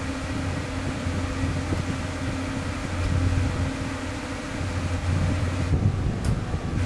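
Steady low mechanical hum and rumble of an old passenger lift with a collapsible scissor gate, heard from inside the car as it runs.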